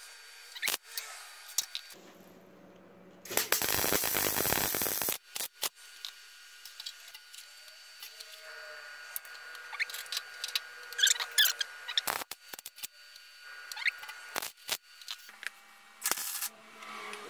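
MIG welder tack- and stitch-welding a new steel front panel onto a Mk1 Volkswagen Golf GTI body: short bursts of welding arc, with one longer weld of about two seconds a few seconds in and another short run near the end.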